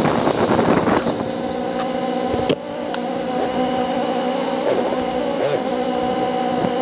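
Motorcycle engine: the wind rush fades in the first second as the bike slows, then the engine runs steadily at low speed, with a few small rises and falls in pitch from the throttle.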